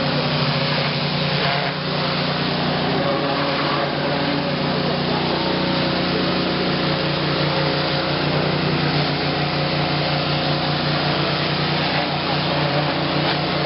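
A 4,500 psi, 6 gallon-per-minute pressure washer running steadily: its engine's hum under the even hiss of the high-pressure water spray.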